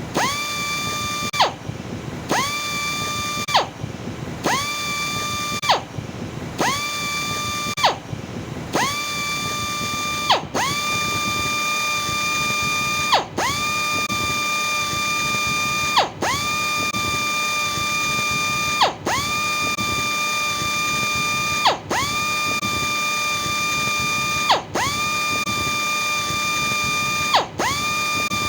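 Electric sander motor running with a high whine that cuts out briefly and spins back up to pitch over and over. It does this about every two seconds at first, then about every three seconds from about ten seconds in.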